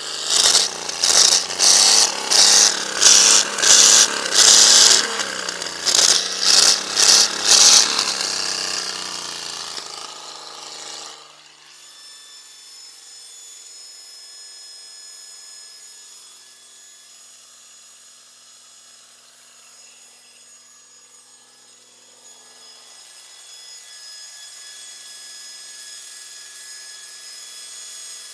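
Chevrolet Opala Caravan engine revved hard in a rapid series of about ten short, loud blips over the first eight seconds, running loud and rumbling. It then falls back and cuts off sharply about eleven seconds in, leaving only a faint steady hum.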